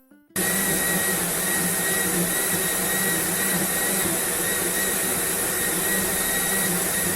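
Household appliance motor running steadily, such as a vacuum cleaner: a loud, even whooshing noise with a steady high whine, starting abruptly just after the beginning.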